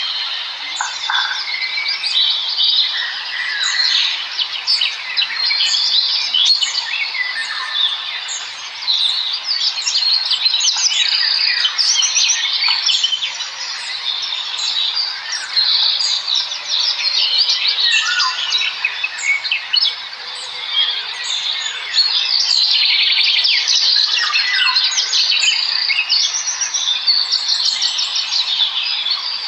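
Many small birds chirping and chittering together: a dense, unbroken chorus of short overlapping calls and quick trills.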